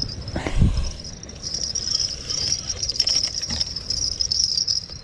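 A small bite bell on a fishing rod jingling continuously in a fast, high-pitched shimmer as the line tugs the rod tip, then stopping suddenly near the end. There is a soft thump about half a second in.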